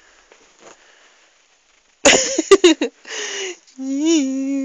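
A woman's voice: faint rustling, then about two seconds in a loud sudden vocal outburst and a breathy exhale. After that comes a long hum held on one pitch.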